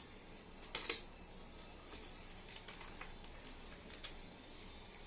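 A brief clatter of small hard objects on a table about a second in, followed by a few faint taps.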